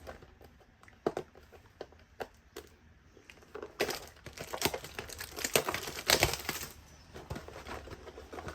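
A trading card pack's wrapper being handled: a few scattered crinkles, then about four seconds in a stretch of dense crackling and tearing as the pack is ripped open.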